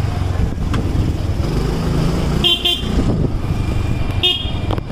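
Road traffic with a steady low rumble of engines, and a vehicle horn tooting: a quick double toot about halfway through and one more short toot near the end.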